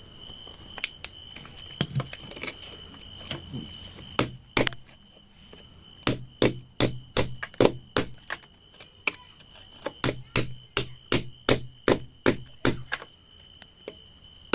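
Hand tool striking rock, hammering in quick even blows, about three a second, in two runs, after a few scattered knocks. A steady high-pitched tone runs underneath.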